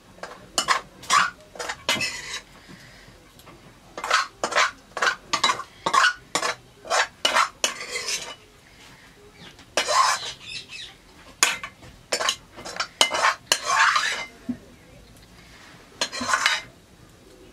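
Metal ladle scraping and clinking against a metal pot while stirring a liquid curry, in short irregular strokes that come in quick runs with brief pauses between.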